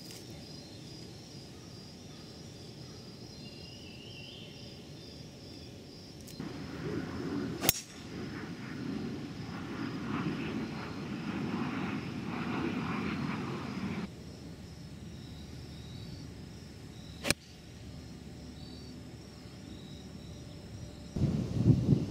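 Golf club striking a ball: sharp clicks right at the start, about 8 seconds in and about 17 seconds in. Between them is steady outdoor background, with a louder rushing noise for several seconds in the middle.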